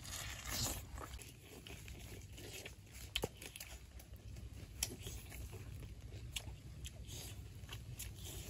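Cooked crab shell being bitten and cracked and the meat chewed: irregular crunches and small clicks, over a low steady rumble.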